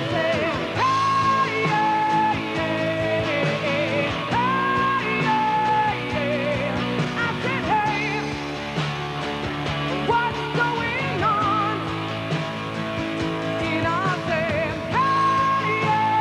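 Rock music playing: a lead line of long held, wavering notes over a steady band backing.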